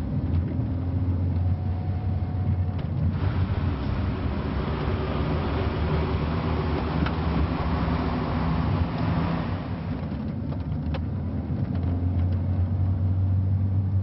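A car's engine and road noise heard from inside the cabin while driving: a steady low drone. A louder rush of noise swells in about three seconds in and fades out near ten seconds.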